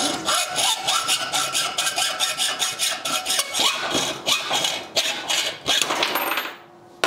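Steel seat post levering against a cheap 19 mm combination wrench clamped in a bench vise: a fast, even run of metal clicks and scraping with a faint ringing, stopping about six and a half seconds in.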